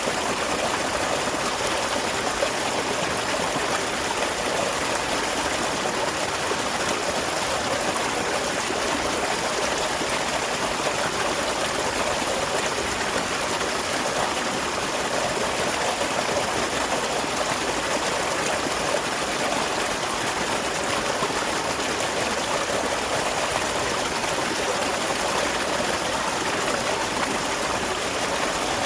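A small waterfall running steadily, water splashing and trickling in an even rush.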